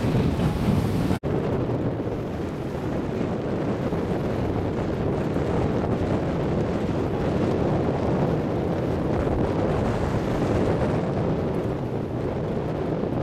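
Wind buffeting the microphone over the rush of water along the hull of a sailboat under way, steady throughout, with a brief break about a second in.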